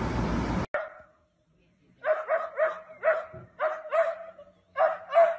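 A steady rush of noise that cuts off suddenly under a second in, then a small dog barking, quick evenly spaced yaps about three a second, in short runs with brief pauses.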